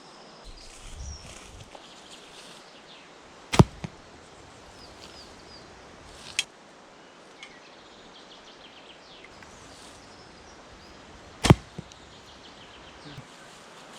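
Two shots from a 55-pound bow, about eight seconds apart: each a sharp snap on release followed a fraction of a second later by a smaller knock, with a lighter click in between.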